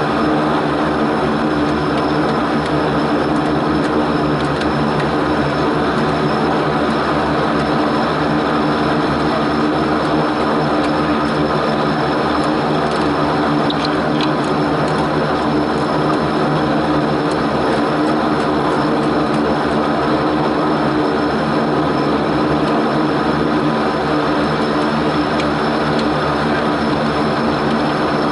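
Antonov An-24's two Ivchenko AI-24 turboprop engines and propellers running steadily: a loud, constant drone of propeller tones over a hissing wash, with no rise or fall in pitch.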